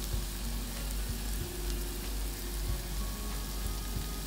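Sliced onions with garlic, ginger and curry leaves frying in oil in a saucepan: a steady sizzle with a few faint clicks. The onions have just been salted and are starting to soften.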